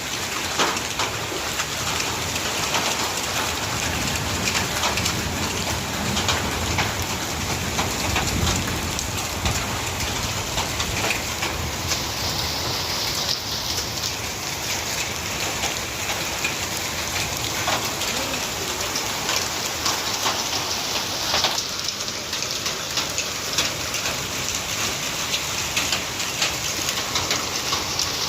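Heavy rain pouring down with hail, a steady dense downpour full of sharp pattering impacts.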